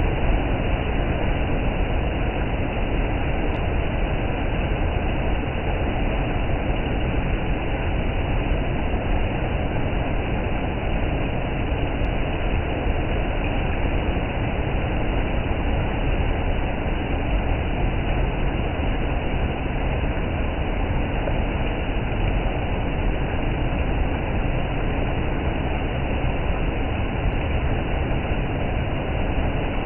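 Rushing river water: a steady, unbroken noise with a deep rumble underneath.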